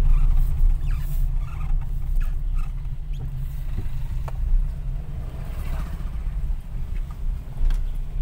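Steady low rumble of a car driving, heard from inside the cabin: engine and tyre noise with a few faint clicks and rattles.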